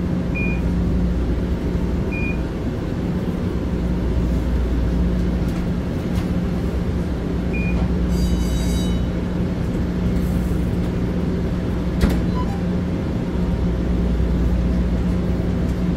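Interior of a light rail car standing at a station: a steady low hum from the car's onboard equipment. A few short high beeps sound in the first eight seconds, then a brief high ringing tone, then a single click about twelve seconds in.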